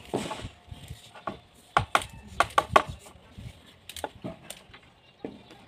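Irregular sharp knocks and taps: one just after the start, a quick cluster of several about two seconds in, and two more around four seconds.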